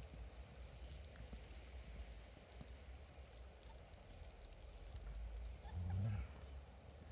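Dogs play-wrestling in snow: faint scuffling over a low wind rumble, with a short, low dog vocalisation about six seconds in.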